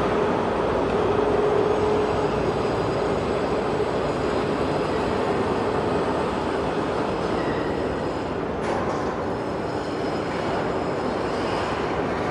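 Plate rolling machine running, a steady grinding rumble with a faint whine that fades out after the first few seconds.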